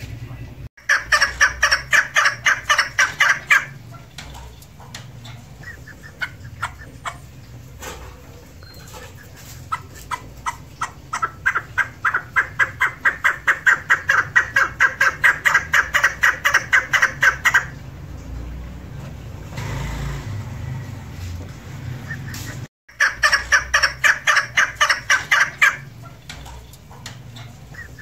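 Female chukar partridge calling in three bouts of rapid, evenly spaced short notes, about five a second. The middle bout is the longest, lasting some eight seconds.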